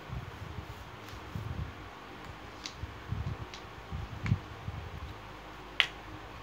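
Small clicks and knocks of felt-tip marker pens being handled and set down against a whiteboard, with soft low bumps between them; the sharpest click comes near the end.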